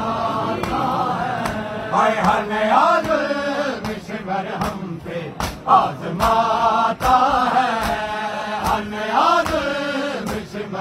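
Men's voices chanting a noha lament, the Shia mourning chant, with a regular slapping beat about every three-quarters of a second from the mourners' chest-beating (matam).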